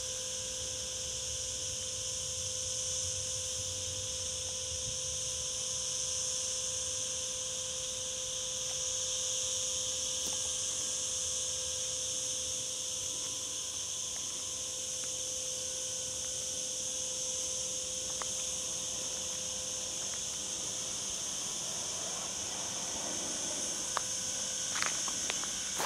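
Chorus of cicadas, a steady high-pitched buzz, with a few light clicks near the end.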